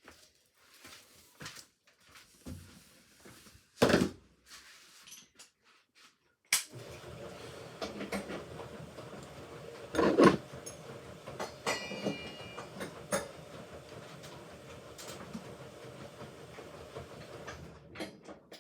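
Hoover Ecologic Computer Washer 1300 washing machine during its rinse: a few clicks and a single loud knock, then the machine starts up abruptly and runs with a steady noise and scattered clunks for about eleven seconds before stopping.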